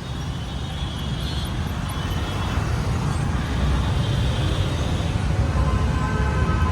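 Steady rumble of road traffic going by, growing louder toward the end, with a steady higher tone joining near the end.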